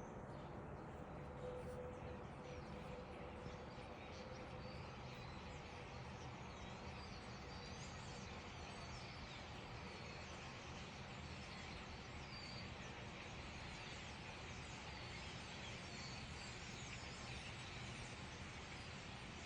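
A flock of birds gathered before migration, calling together as a dense, faint chatter of high chirps over a steady background hiss; the calls thicken after the first few seconds.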